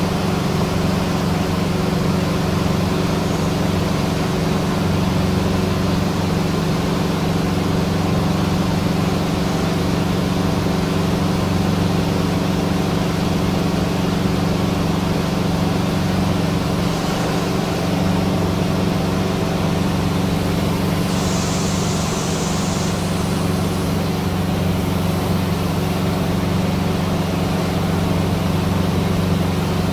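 Cessna 150's four-cylinder Continental O-200 engine and propeller droning steadily in flight, heard from inside the small cabin, with an even low hum that does not change.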